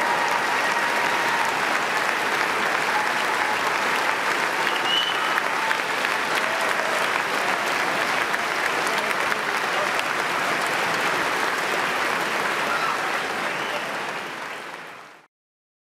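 Audience applauding steadily, with a few faint cries in the crowd; the applause tails off and cuts off abruptly near the end.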